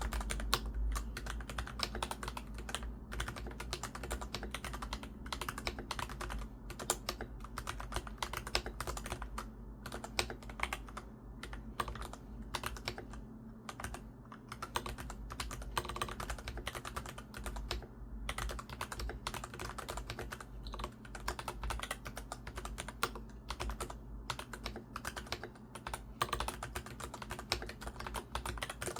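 Continuous fast typing on a Monster Gear Ninja87 mechanical keyboard with Gateron Brown tactile switches and pudding keycaps: a dense, unbroken run of keystrokes with a rolling, pebble-like clatter.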